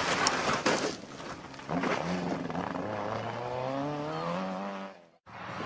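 Rally car passing close with a burst of engine and tyre noise, then its engine pulling hard as it drives away, the pitch rising steadily in one long climb. The sound cuts off abruptly about five seconds in, and another car's engine starts right after.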